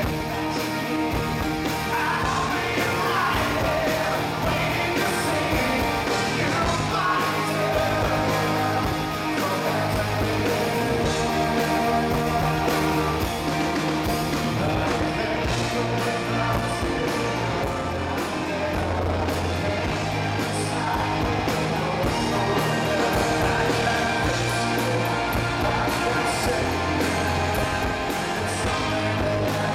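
Live rock band playing, with a man singing lead over electric guitars and a steady beat.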